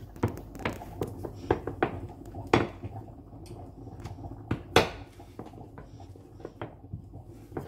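Wooden rolling pin rolling out roti dough on a glass cutting board: irregular clicks and knocks of wood on glass, the sharpest about two and a half and about five seconds in.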